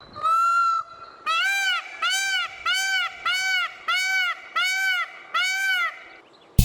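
Peacock calling: one held call near the start, then a run of seven loud, shorter calls, each rising and falling in pitch, repeated evenly about every two-thirds of a second.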